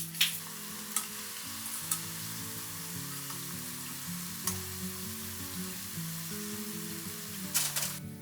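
Food frying in hot oil: a steady sizzling hiss with a few light clicks, and a brief flurry of louder crackles near the end.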